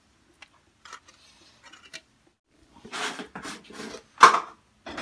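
Rubbing and scraping handling noises with a few faint clicks, then a sharp knock about a second before the end.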